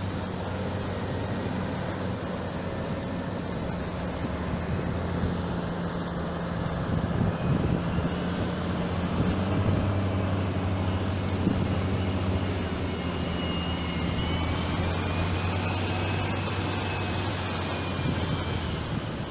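A steady low engine hum over the wash of breaking surf.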